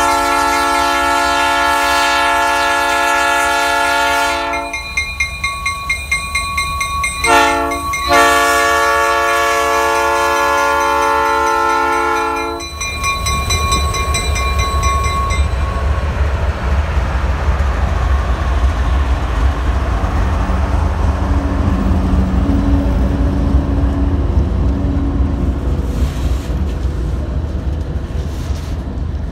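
Diesel freight locomotive sounding its multi-chime air horn: a long blast, a short one and a second long blast, with the locomotive bell ringing. Then the locomotives and freight cars roll past close by as a steady low rumble of engines and wheels on the rails.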